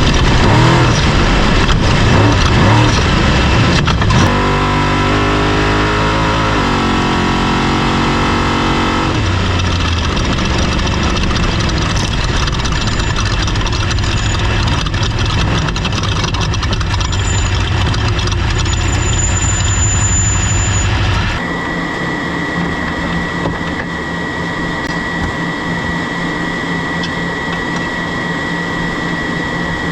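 Off-road race vehicle's engine revving and climbing in pitch through the gears, then running steadily at speed. About two-thirds of the way through the sound changes abruptly, the low rumble dropping away and a steady high whine running over the engine.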